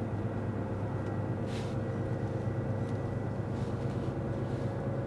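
Scania truck driving, heard from inside the cab: a steady low engine and drivetrain hum. A brief faint hiss comes about a second and a half in.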